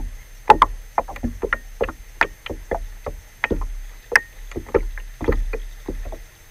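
Small choppy waves slapping against the hull of a kayak: irregular sharp slaps, about four or five a second.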